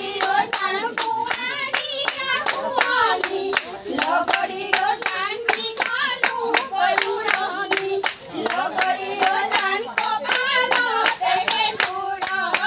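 A group of people singing a folk song together, with steady rhythmic handclapping keeping time at about three claps a second.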